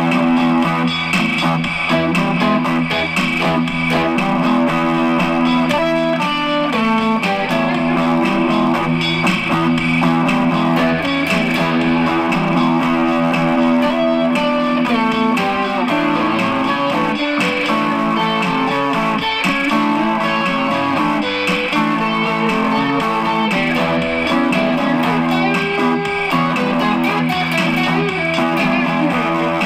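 Background electric guitar music: a 1973 Gibson L6-S played clean through a Fender Hot Rod Deluxe III amp, with no effects pedals, picking melodic lines over held notes.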